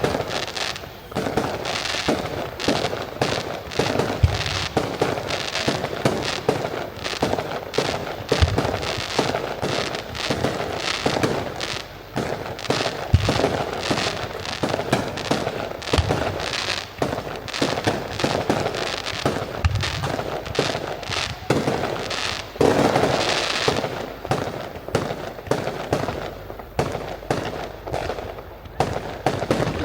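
Aerial fireworks display: a dense, continuous run of crackling and popping reports from many bursting shells, with a deep boom every few seconds. It swells louder for a moment about two-thirds of the way through.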